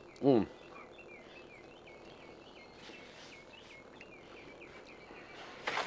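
A man's appreciative 'mm' while tasting food, then quiet outdoor ambience. In the background a bird chirps a quick series of short repeated notes, about four a second. A brief breathy noise comes just before the end.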